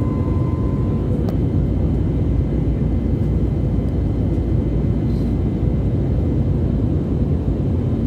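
Steady cabin noise of an airliner in flight, a deep unbroken rumble of jet engines and rushing air. A faint click comes shortly after a second in.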